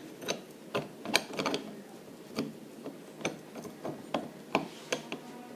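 Metal parts of a small centrifugal clutch clicking and clinking together as the clutch shoes and springs are fitted in by hand: a dozen or so irregular sharp clicks and knocks.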